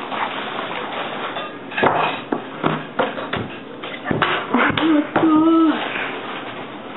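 A girl's idle mouth noises: a scatter of short clicks and pops, and a short sung note a little past five seconds in.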